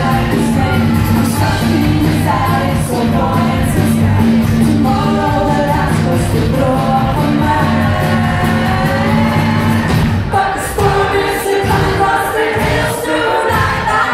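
Live band playing an upbeat folk-pop song with women singing. About ten seconds in, the bass and drums drop away for a few seconds while the singing carries on.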